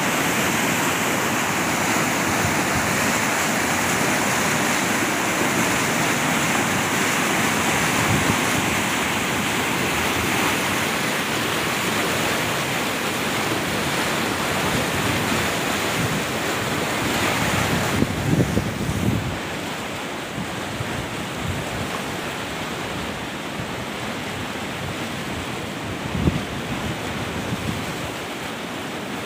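Water gushing out of a concrete culvert outlet into a stream, a steady loud rush of churning water. About 18 s in it drops to a quieter rush of fast-flowing water, with a few low bumps.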